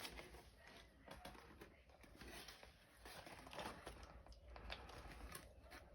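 Near silence with faint, scattered rustling and small clicks of things being handled.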